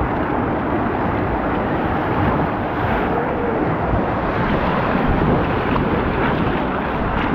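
Water rushing and churning down a water-park rapids raft ride channel, a steady loud rush mixed with wind buffeting the microphone.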